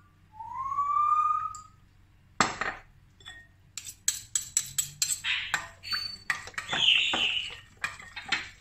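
A brief rising tone about half a second in, then a utensil knocking and clinking quickly against a mixing bowl as egg, yogurt and olive oil are stirred together for pizza dough.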